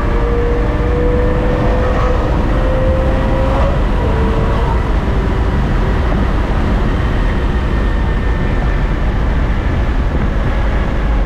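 BMW E92 M3's S65 V8 running under a light load, heard from inside the cabin together with steady tyre and road noise. Its note rises slowly in pitch, then dips about four seconds in, and after that the engine and road noise run steadily.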